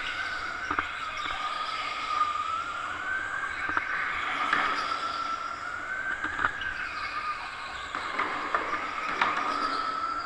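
Electric go-kart's motor whining, its pitch sinking and rising several times as the kart slows for corners and speeds up again. A few short sharp clicks sound over it.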